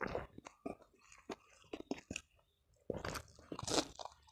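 Close-miked chewing of a person eating by hand: scattered wet smacks and mouth clicks, then a run of louder crunchy chewing about three seconds in.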